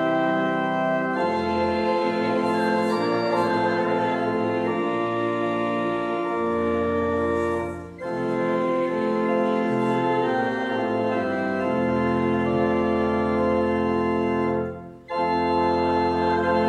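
Church organ playing a hymn in held chords. The sound breaks off briefly at the end of a phrase about 8 seconds in, and again about 15 seconds in.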